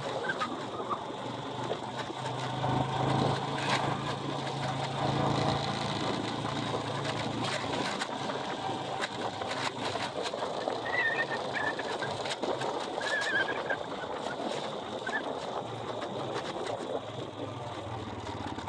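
A vehicle's engine running low and steady as it drives, with strong wind blowing and scattered knocks from the ride. A few short high squeaks come about eleven and thirteen seconds in.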